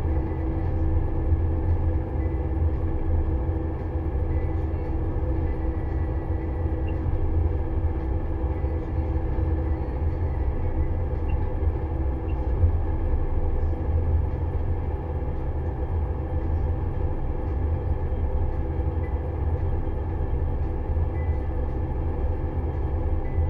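Pellenc Optimum 890 grape harvester heard from inside its cab: the engine and machinery run with a steady drone. A hum in it drops away about ten seconds in.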